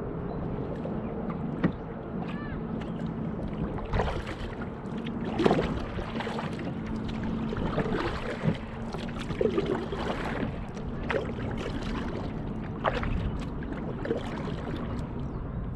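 Water splashing and lapping against a kayak's hull under paddle strokes, in uneven surges, over a steady low hum.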